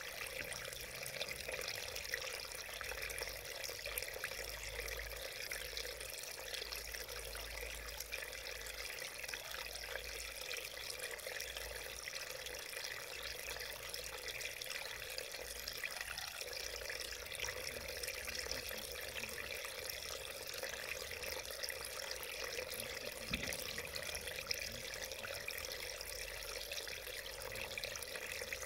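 Shallow mountain stream running over rocks: a steady, even babble and trickle of water.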